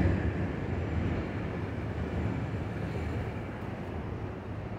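An IRT subway train running on the elevated steel structure, its sound slowly fading.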